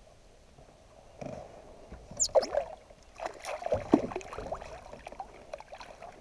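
A small hooked bream splashing at the water's surface beside a kayak as a landing net is dipped in and scooped under it. The splashes and sloshes start about a second in and come irregularly, loudest around two and four seconds in.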